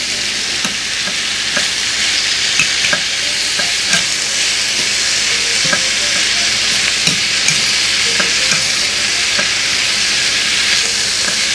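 Kale, bell peppers, onions and mushrooms sizzling steadily in a stainless steel frying pan while being stirred with a fork, with scattered clicks and scrapes of the fork against the pan.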